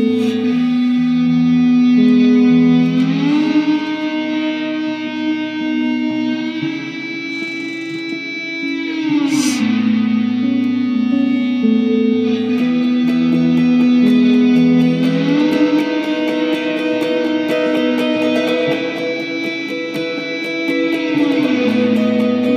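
Fender Telecaster electric guitar through a Vox AC15 amp and effects, playing slow ambient swells of long sustained notes. The low note glides up with a glass slide and back down, twice.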